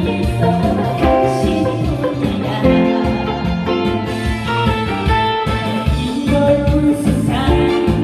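Song accompaniment with guitar over a steady, even bass beat.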